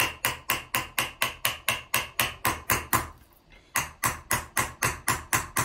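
Round-faced Huang embossing hammer striking a copper vessel in rapid, even blows, about four a second, hammer-chasing a concave trench into the metal. The blows stop briefly about three seconds in, then resume.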